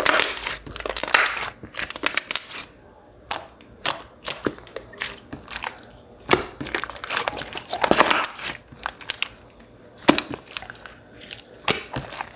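Clear "water jelly" slime squished and pressed by hand, giving irregular sticky clicks and crackles that come in clusters with short lulls between them.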